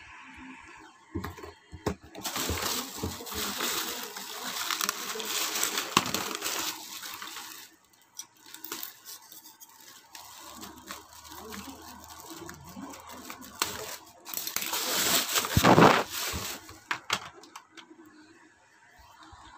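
Clear plastic bag crinkling and rustling as it is pulled off a small plastic desk fan, in two loud spells with quieter handling between.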